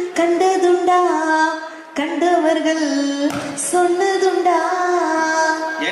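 A woman singing unaccompanied, holding long, gently wavering notes with short breaks between phrases.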